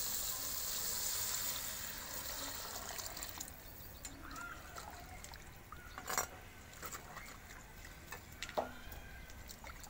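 Water poured into a hot clay pot of frying chicken and masala: the sizzling hiss fades away over the first three seconds or so as the water goes in. Then a steel ladle stirs the liquid, clinking sharply against the pot a couple of times.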